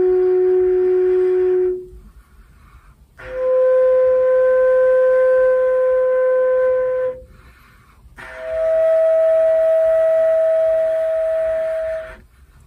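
Didgeridoo played flute-style, giving clear, flute-like held notes instead of the usual drone. Three long notes of about four seconds each, every one higher than the last, with short gaps between them.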